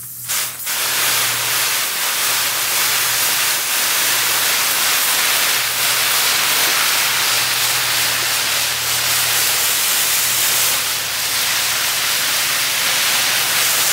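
Hand-held hose spray nozzle misting water over seed trays: a loud, steady hiss of fine spray that starts about half a second in.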